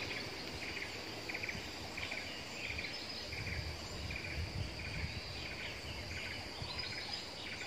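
Tropical forest ambience: insects keep up a steady high drone, with scattered bird chirps. Wind gusts come and go, strongest in the middle.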